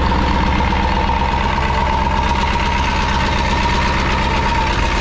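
Rebuilt Ford 7.3 Powerstroke turbodiesel V8 running steadily on an engine hoist during its test start, with a steady high-pitched tone over the engine's rumble.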